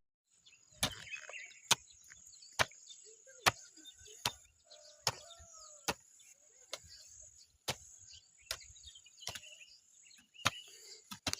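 A knife chopping on a board in a steady rhythm, a little more than one stroke a second, with faint bird chirps and a thin high insect hum behind it.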